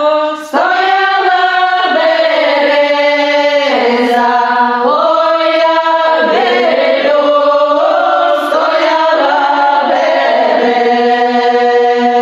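A small group of women singing a Ukrainian folk song unaccompanied, in several parts, with long held notes.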